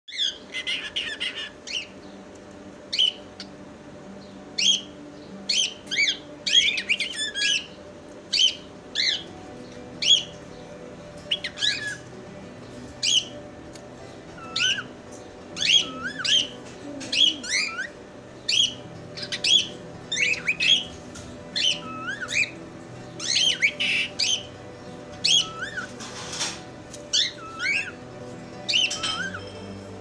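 Pet cockatiel chirping and whistling: a steady string of short, high notes, many sweeping up or down, about one or two a second.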